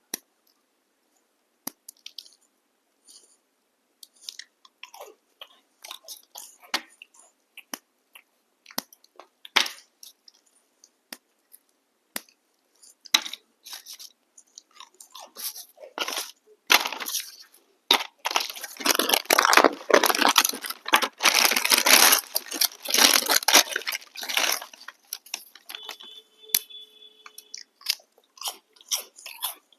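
Crunchy chocolate biscuit snacks being bitten and chewed: scattered sharp clicks and crackles at first, then a dense run of crunching in the last third, with a brief tone near the end.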